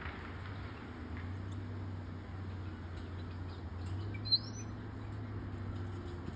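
A single brief, high-pitched animal squeak about four seconds in, rising then dropping in pitch, over a steady low background rumble.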